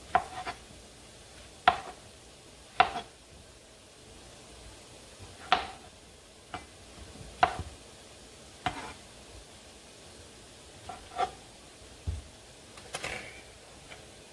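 Kitchen knife slicing through portobello mushroom caps, striking a plastic cutting board in about nine separate knocks, one every second or so at an uneven pace.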